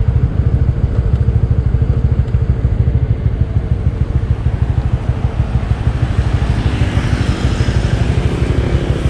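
Small motorcycle being ridden along a road, its engine running steadily under a heavy low rumble of riding noise. A brighter hiss swells about seven seconds in.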